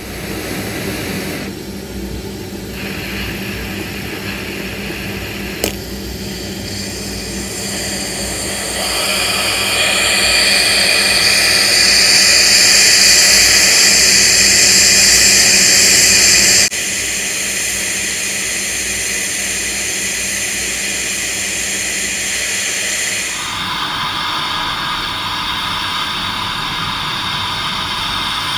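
Oxygen-propane torch flame running with a steady hiss as it heats a rusted nut on a bolt. The hiss grows louder and brighter about nine seconds in, drops suddenly about seventeen seconds in, and changes tone again a few seconds before the end.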